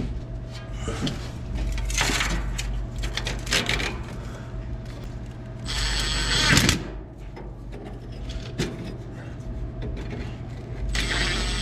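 Hand and power tools at work on a truck's exhaust clamp bolts: a ratchet clicking, then two short bursts of a power tool with a thin high whine, about six seconds in and near the end, over a steady low hum.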